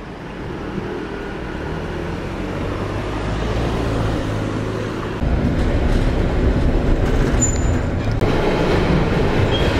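Train running, its low rumble slowly growing louder and then stepping up suddenly about five seconds in.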